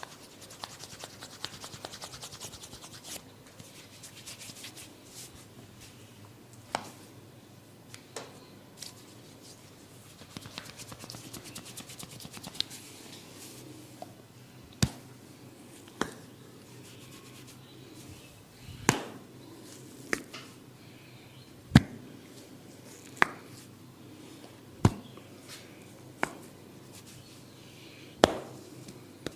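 Comb massage: comb teeth scratching and brushing through hair on the scalp. From about halfway, this gives way to single sharp snaps at roughly one every second and a half.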